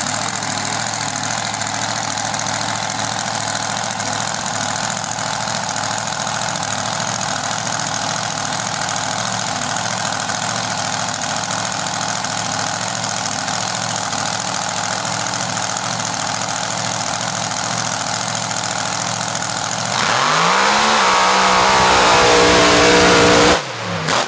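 Mega mud truck's big engine idling with a steady rumble. About 20 seconds in it revs up hard and loud, its pitch climbing, as the truck launches through the mud pit. It cuts off sharply near the end, then the engine note drops.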